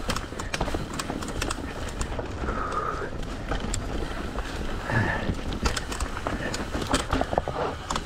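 Mountain bike riding down a rocky dirt trail: irregular clicks and knocks of the tyres and frame rattling over rocks, over a steady low rumble of wind on the helmet-mounted camera, with a couple of brief squeaks.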